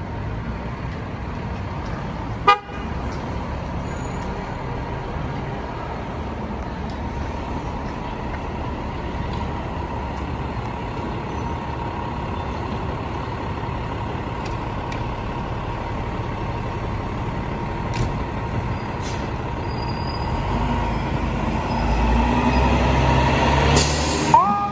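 Fire engine running with its lights on amid steady street rumble, with one short horn toot about two and a half seconds in. The engine grows louder near the end as the rig pulls out, and a siren starts winding up just before the end.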